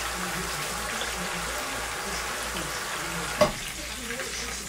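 Whole red snapper frying in hot oil, a steady sizzle, with one sharp knock about three and a half seconds in.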